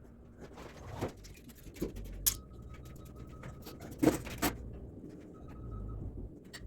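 Hand tools at work around a diesel engine during glow plug replacement: scattered small clicks and scrapes, with sharper knocks about two seconds in and twice around four seconds. A faint steady high tone sounds twice in between.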